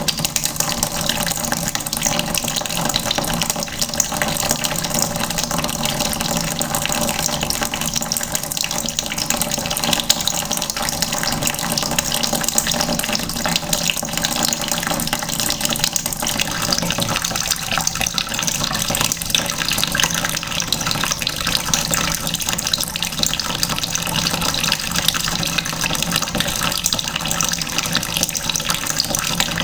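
Water running from a tap into a bucket, a steady, unbroken stream splashing into the water already in it.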